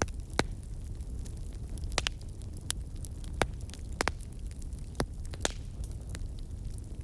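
Bonfire burning: a steady low rumble of flames with irregular sharp crackles and pops of burning wood, a few louder snaps among them.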